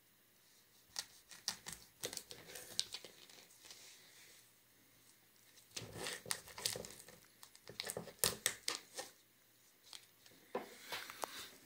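Knife cutting through the plastic casing of a boiled sausage on a thin plastic cutting board, and the casing crinkling and tearing as it is handled and peeled, in three bunches of crackling and small clicks.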